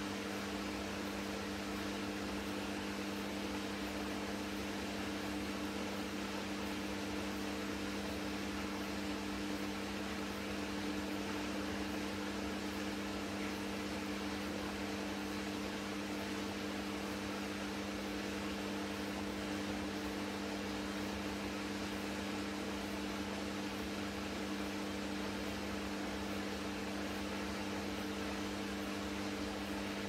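Hoover H Wash 300 Plus front-loading washing machine running its wash tumble: the drum motor hums steadily as the drum turns the laundry through the water.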